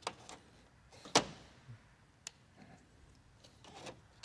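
Plastic push-pin retainers being pressed into the top edge of a car's front bumper cover: a few short sharp clicks, the loudest one about a second in.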